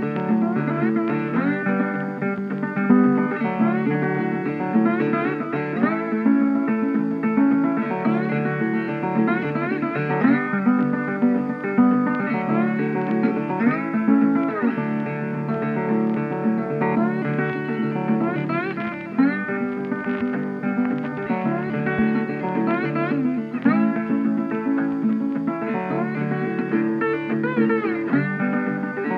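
Background music led by plucked guitar, with notes that slide up and down over a steady lower backing.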